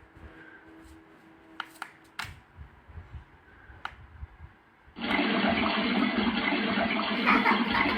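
A few faint clicks, then about five seconds in a steady rushing water sound starts abruptly from the lamp-alarm clock's small speaker: one of its built-in white-noise sleep sounds.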